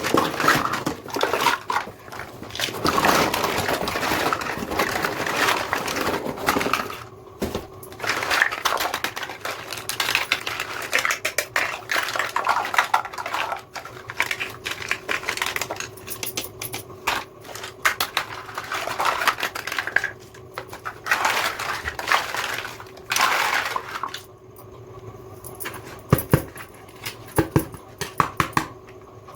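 Plastic packaging crinkling and small plastic toy kitchen pieces clicking and clattering during the unboxing of a miniature kitchen set. Near the end it goes quieter, leaving a few separate sharp clicks.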